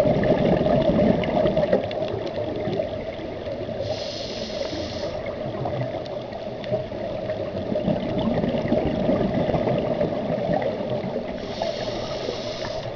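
Scuba diver's regulator breathing underwater: exhaled bubbles rumbling, with a short high hiss of inhalation twice, about four seconds in and near the end.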